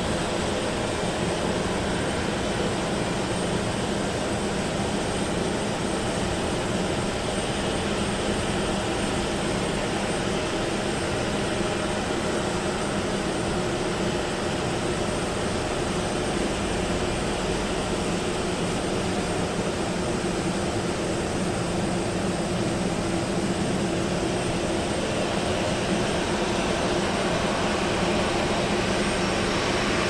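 Steady, even engine noise of distant traffic in a city, a continuous rumble and hiss with no distinct events.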